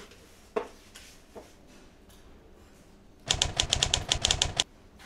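A single knock about half a second in, then a fast run of about a dozen typewriter keystrokes lasting a little over a second.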